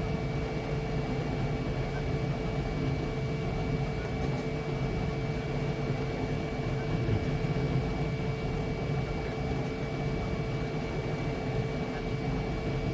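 Flashforge Adventurer 5M Pro 3D printer running mid-print: a steady whirring hum of its fans and motors with a constant high whine.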